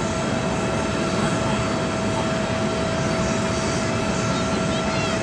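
Embraer ERJ-145-family regional jet on approach with its landing gear down, its twin rear-mounted turbofans giving a steady rushing noise with a constant whine.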